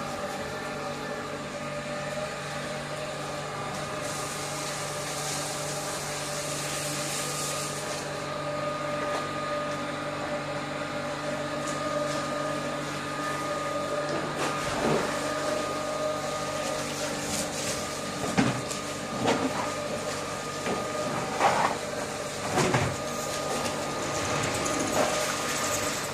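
A machine's motor running with a steady hum. A hiss comes in about four seconds in and lasts a few seconds, and several short, louder sounds come in the second half.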